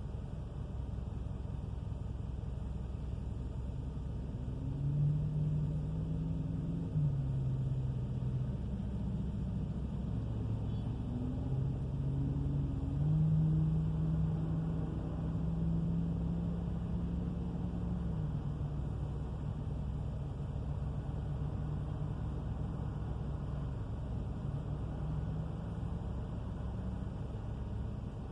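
2000 Subaru Legacy AWD on the move: a steady low roaring rumble with a hum that steps up and down in pitch several times. The owner hears the roar coming from the rear end and has already replaced the wheel bearing, brakes, calipers and rotors, so its cause is unknown.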